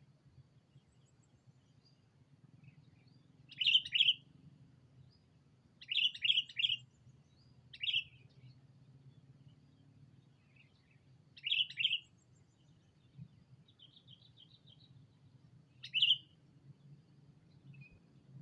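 Sooty-headed bulbul (kutilang) calling: short, loud notes that each drop in pitch, given singly or in quick groups of two or three, five times over the stretch, with fainter chattering between. It is the call a decoy bulbul uses to challenge rival bulbuls.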